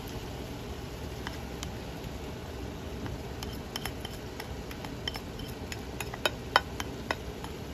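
Chopped fresh chillies scraped off a plate with a plastic spatula into a pan of shallots and garlic frying in oil: a low steady sizzle under a run of clicks and taps of spatula on plate and pan, growing busier about halfway, with two sharp knocks near the end.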